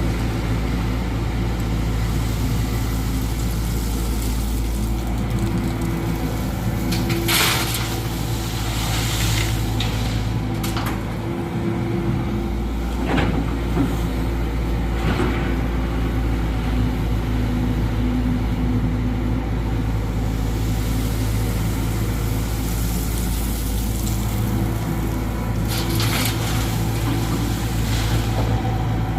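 Tata Hitachi excavator's diesel engine running steadily under work, with several short bursts of noise on top at intervals.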